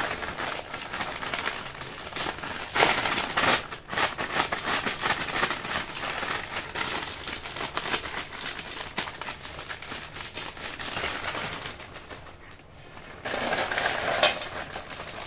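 A shiny plastic snack packet crinkling as it is handled and cut open with scissors, then the fried snacks rattling out of it onto a steel plate near the end.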